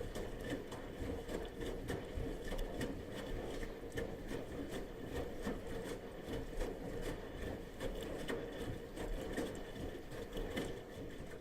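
Bosch washing machine in its wash cycle: the drum turning with laundry and water sloshing, a steady run of small irregular knocks and clicks, and a faint steady whine from the motor.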